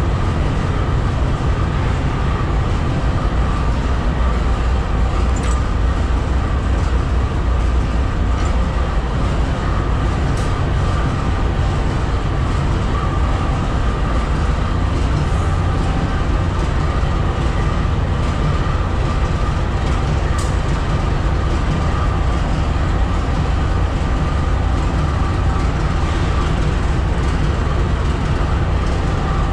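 Diesel-electric locomotive idling: a steady, heavy low rumble with a faint constant whine above it, unchanging throughout.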